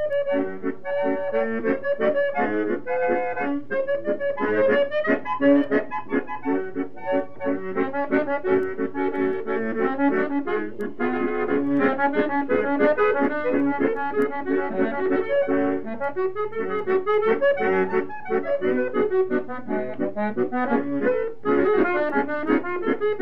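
Accordion playing a fast tune, quick runs of melody notes over a chordal accompaniment.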